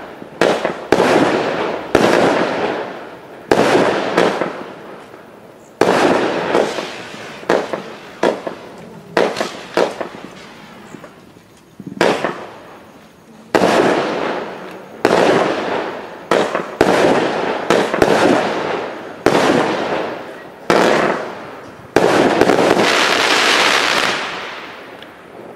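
A 350-gram consumer fireworks cake firing shot after shot: some two dozen sharp bangs at uneven intervals, each trailing off into a fading rush of noise, with a short lull near the middle. The last burst is longer and stops abruptly near the end.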